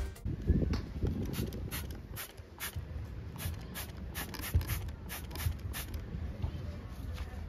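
Trigger spray bottle squirting water onto freshly poured concrete in a quick series of short hissy squirts, about two to three a second, over a low rumble: wetting the concrete to keep it damp while it cures.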